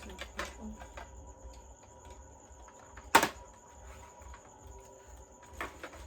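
Hard plastic parts of a cordless stick vacuum being handled and fitted together: scattered light clicks, with one sharp click about three seconds in and a couple more near the end.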